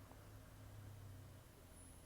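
An old cat snoring in its sleep: a faint, low rumble on one breath that eases off about one and a half seconds in. The snoring and breathing are very rough.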